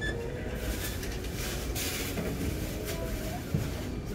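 Store checkout ambience: a steady low hum of the shop with faint distant voices, a short beep right at the start and a single knock about three and a half seconds in.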